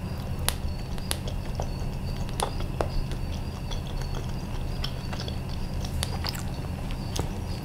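Close-miked chewing of soft boiled banana: scattered wet mouth clicks and smacks over a steady low hum.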